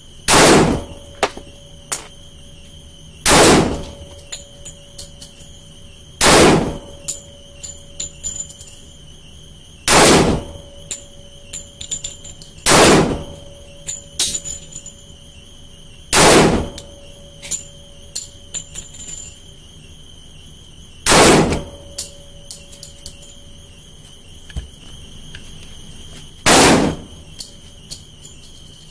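Glock 30S .45 ACP pistol fired in slow single shots, eight in all, a few seconds apart, each with a short ringing echo. Fainter pops and clicks fall between the shots.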